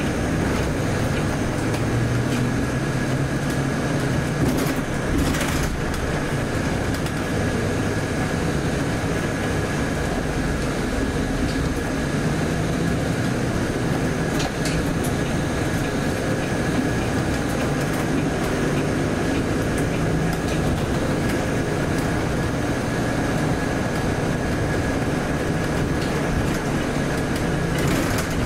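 Interior of a Volvo B8RLE bus under way: its rear-mounted six-cylinder diesel engine and drivetrain running with road noise, the engine pitch rising and falling with the driving. A thin steady high whine runs throughout, with a few faint knocks or rattles about five seconds in and near the end.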